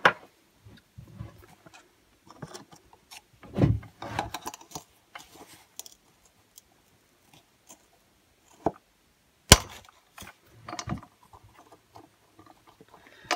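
Small handling clicks and scrapes of a screwdriver and fingers working at a stuck hose on a two-stroke leaf blower's carburettor, with one sharp click about nine and a half seconds in.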